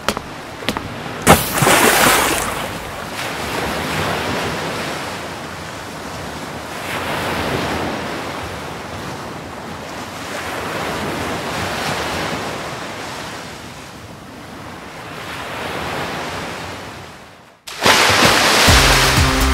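Ocean surf breaking and washing in, swelling and fading every few seconds, with the loudest crash about two seconds in. Near the end it cuts off abruptly and electronic music starts.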